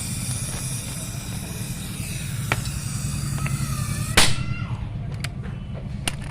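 Steady low mechanical hum like a running engine, with a few sharp clicks and knocks, the loudest about four seconds in.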